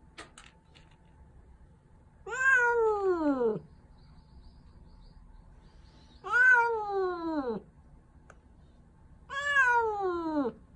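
A female stray tabby cat, newly caught in a live trap, meowing three times. Each meow is long and slides down in pitch, with a few seconds of quiet between them.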